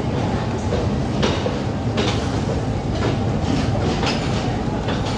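Passenger express train rolling into a station, heard from an open carriage door: a steady rumble of the running gear with irregular clacks of the wheels over rail joints.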